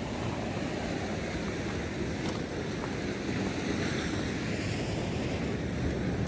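Sea surf washing on a rocky shore, with wind buffeting the microphone: a steady rushing noise.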